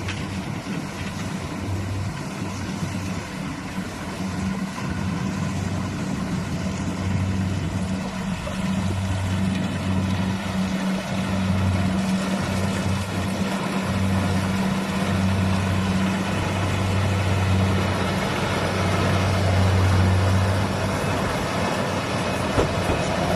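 Rice combine harvester running steadily: a low engine hum that swells and fades every few seconds over a constant wash of machinery noise.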